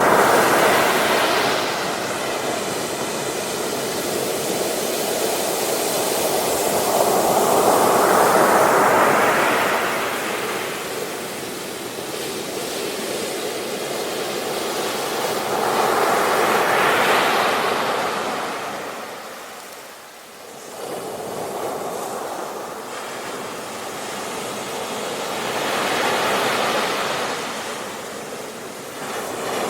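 Sea waves washing onto a beach. The surf swells and fades in surges about every eight to nine seconds, with a brief lull about two-thirds of the way through.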